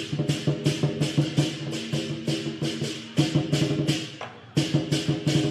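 Dragon-dance percussion band playing a rapid, even beat of sharp strikes, about four to five a second. The beat fades and drops out briefly near the four-second mark, then comes back in at full strength.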